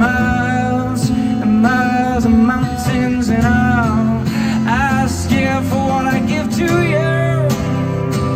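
Live music: strummed acoustic guitar with a voice singing a wordless, sliding melody over it.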